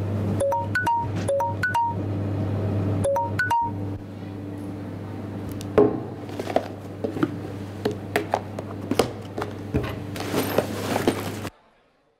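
Phone message notification chimes: short three-note blips that repeat rapidly, about ten in the first few seconds, over a low droning music bed. Later come scattered light clicks and clinks, and the sound cuts out abruptly near the end.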